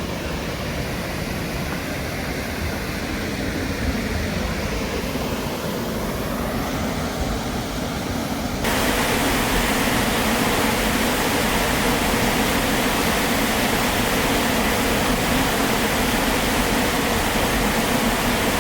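Steady rushing noise of a waterfall's falling water. About nine seconds in it jumps abruptly louder and brighter and stays that way.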